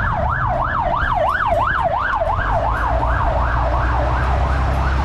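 Emergency-vehicle siren in a fast wail, its pitch sweeping up and down about three times a second, over the low rumble of street traffic.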